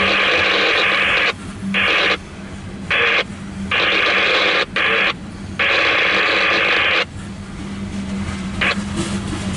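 Loud bursts of radio static that cut in and out abruptly several times, over a steady low hum. After about seven seconds the static stops, and the rumble of passing loaded coal hopper cars grows louder.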